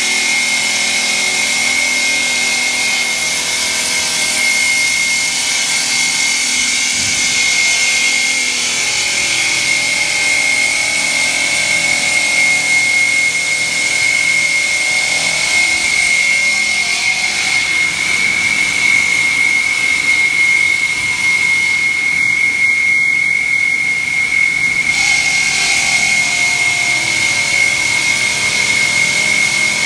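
CNC stone cutting machine's water-cooled circular blade cutting granite slabs, a steady high whine over a continuous hiss.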